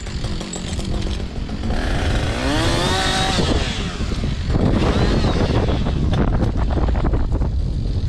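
Stihl top-handle chainsaw revving up and back down about two seconds in, then briefly again about five seconds in, over a steady rumble of wind buffeting the microphone.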